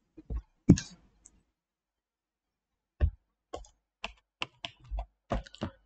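Computer keyboard and mouse clicking: a few sharp clicks at first, then after a short pause a quick, irregular run of about ten more.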